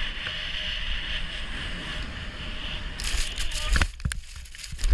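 Steady rushing hiss of a sled sliding fast over groomed snow, with wind on the microphone. About four seconds in a heavy thump cuts in, followed by scattered knocks and scuffs in the snow.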